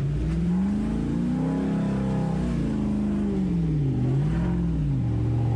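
Off-road 4x4's engine revving: the note climbs about a second in, eases back down, dips twice near the four-second mark, then settles to a steady lower note.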